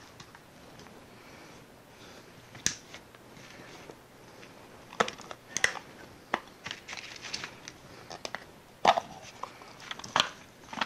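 Hand work on a neon sign transformer as its back cover is taken off: irregular clicks, knocks and scraping, with the loudest knock about nine seconds in.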